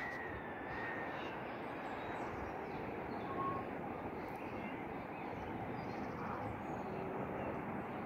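Steady outdoor background noise, a hum like distant town traffic, with a few faint bird calls over it.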